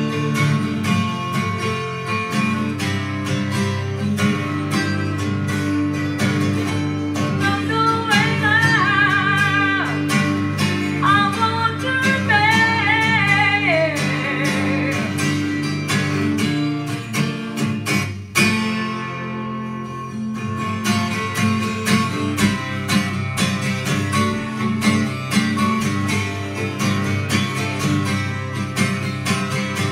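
Acoustic guitar strummed in a steady rhythm, with a woman singing a rock song for a few lines in the middle. The strumming breaks off sharply about eighteen seconds in and then resumes.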